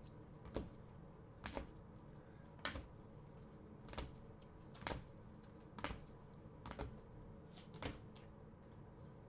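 Rigid plastic toploader card holders clicking as they are set down one after another while being sorted, about one sharp click a second, some in quick pairs.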